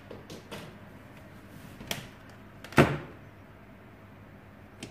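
Light clicks and knocks from handling a Nitecore plastic battery charger and plugging in its cable on a wooden desk, with one louder knock near the middle.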